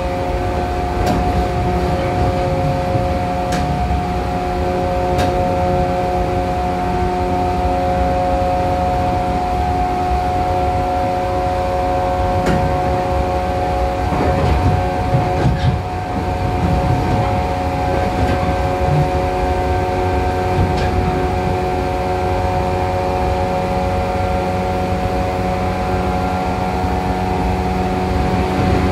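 Interior running sound of a JR 415 series electric train in a motor car, running at steady speed. The traction motors' whine holds a steady pitch over wheel-and-rail rumble, with a few sharp clicks scattered through.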